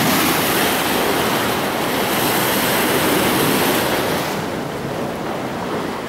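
Ocean waves breaking and washing over rocks at the water's edge: a loud, steady rushing hiss of surf that softens about four seconds in.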